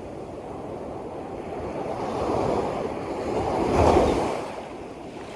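A wave swelling and washing in over a steady wash of surf, loudest about four seconds in, then falling back.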